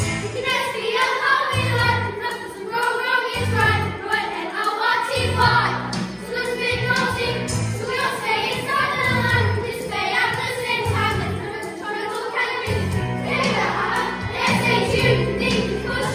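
A group of school children singing together in unison over instrumental accompaniment with a pulsing bass line.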